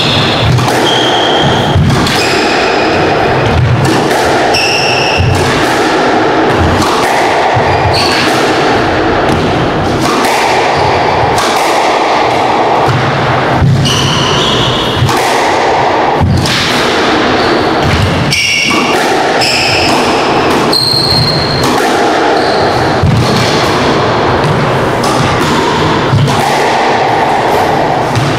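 Squash rally: the rubber ball thudding off the walls and racquets in quick succession, with many brief high squeaks from the players' court shoes on the hardwood floor.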